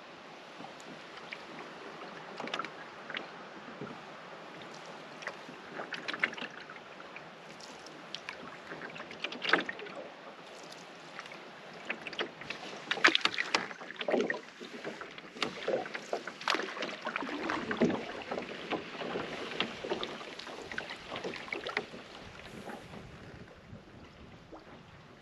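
Canoe paddling: paddle strokes in the water with splashing, dripping and small clicks, busiest and loudest in the middle.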